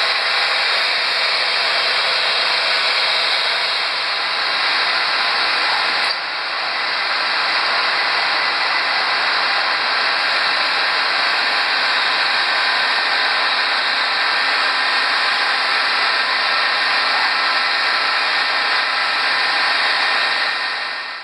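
A power tool grinding glass: a steady, loud abrasive hiss with a faint whine in it. It dips briefly about six seconds in and stops suddenly near the end.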